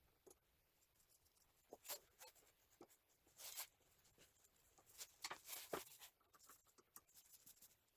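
Faint, scattered clicks, light rustles and a few short scrapes of hands handling small parts and wiring during repair work.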